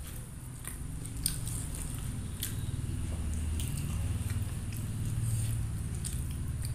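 Close-miked chewing of rice and jengkol stew, with scattered small wet mouth clicks and smacks.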